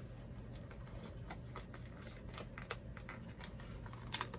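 Small plastic doll accessories and packaging being handled, making irregular light clicks and taps, with a few sharper clicks near the end.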